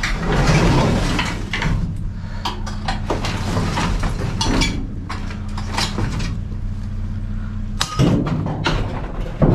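Metal scrap clanking and banging against the sides of a metal dumpster as it is dug through and pulled out, in a run of irregular knocks and clatters. A steady low engine hum runs underneath.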